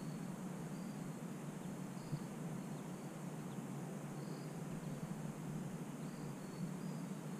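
Crickets chirping in short, high, repeated pulses over a steady outdoor hiss, with one soft tap about two seconds in.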